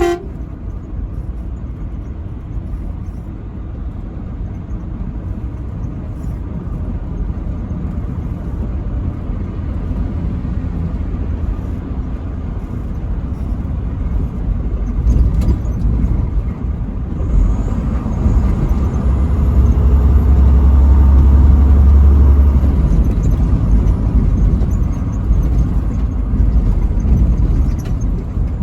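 Truck driving on a highway: a steady low engine and road rumble that swells louder for a few seconds past the middle.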